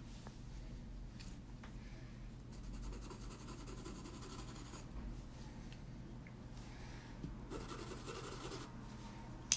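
Coloured pencil scratching across toned paper in short, faint shading strokes, layering colour, with a single sharp click right at the end.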